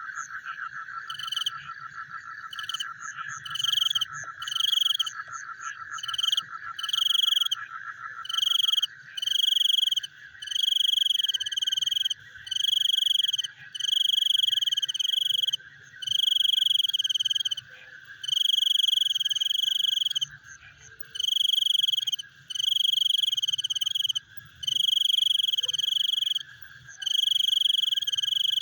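Frogs calling: a steady, fast pulsing trill runs underneath, while a louder, higher buzzy call repeats in bouts of about a second each, irregular at first and then coming one after another with short gaps.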